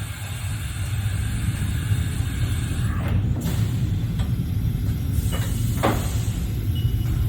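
Large gantry CNC router running with a steady low rumble, a few sharp knocks in the middle, and a short high tone that sounds on and off near the end.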